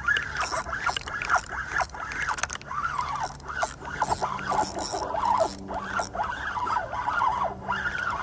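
Spinning fishing reel being cranked to wind in the line: a whine that rises and falls about twice a second with the handle's turns, with light clicking over it.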